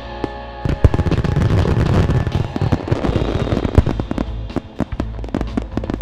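Fireworks banging and crackling, thickening into a dense run of bangs about a second in, over background music.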